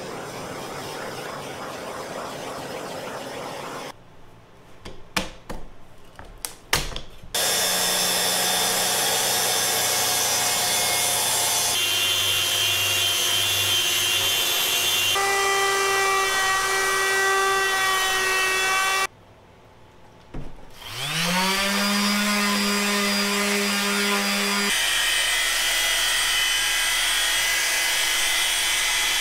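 A propane torch hissing, then a few knocks. Next an electric random orbital sander runs steadily with a constant whine. It stops, a power tool spins back up with rising pitch, and a dual-action polisher runs steadily to the end.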